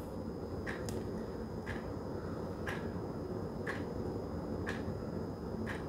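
Quiet room tone: a low steady hum with a faint tick about once a second.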